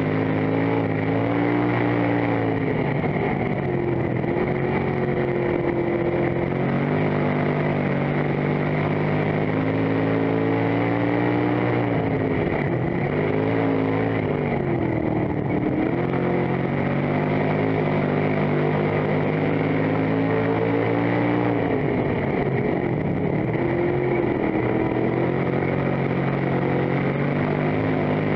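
Dirt-track stock car's engine running hard, heard from inside the cockpit; its pitch dips and climbs back up every few seconds as the car goes around the oval.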